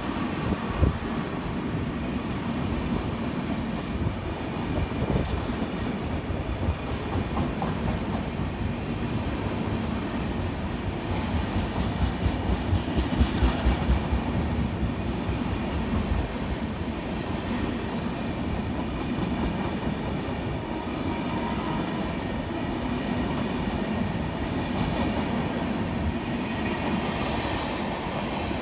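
Express train of double-decker passenger coaches passing along a station platform: a steady rail rumble with rapid clickety-clack of wheels over rail joints.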